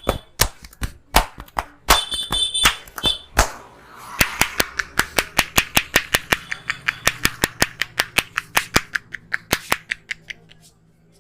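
Sharp hand slaps of a percussive head massage. A few uneven strikes give way, about four seconds in, to a fast, even run of about six slaps a second that stops about ten seconds in.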